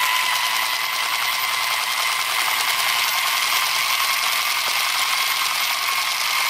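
Toy AK-47 rifle's automatic-fire sound: a fast, even machine-gun rattle over a steady electronic tone.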